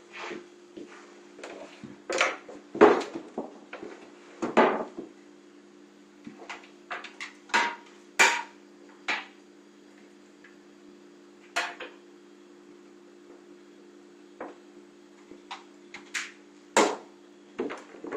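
Irregular knocks, clunks and rattles of a computer tower case being lifted, shifted and set down. A steady low hum runs underneath.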